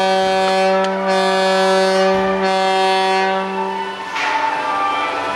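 The king boat float's horn sounding one long, steady, loud note, which stops about four seconds in.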